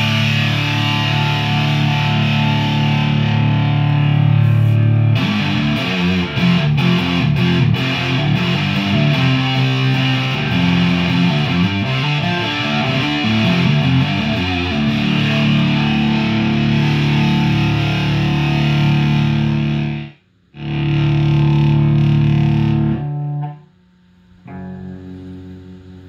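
Electric guitar played through a Khart Effects Shredmax distortion pedal, switched on. It opens with held distorted chords, moves into a stretch of quicker riffing, then goes back to held chords, which cut off sharply about twenty seconds in. A last chord follows, and near the end the playing is quieter.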